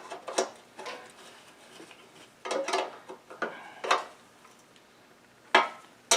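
Irregular metallic clinks and knocks of tools and mower parts being handled and set down, a few separate clatters with short pauses between.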